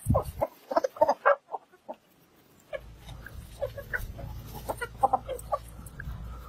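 A flock of chickens clucking in short separate calls as they peck at feed, with a brief silent gap partway through. A low steady rumble runs under the second half.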